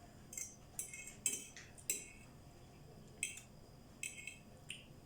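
A fork or other cutlery clinking and scraping against a plate in a series of short, sharp, high-pitched strokes, roughly seven in all, at uneven intervals.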